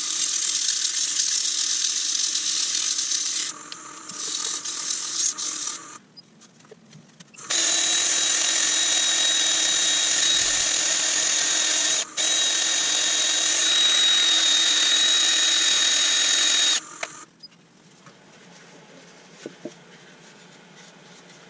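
Nova Saturn wood lathe spinning a beech bowl while it is hand-sanded, then, about seven seconds in, a drill-driven sanding disc runs against the spinning wood with a steady high whine for about nine seconds, cutting out briefly once midway. Near the end the lathe and drill have stopped and it goes quiet.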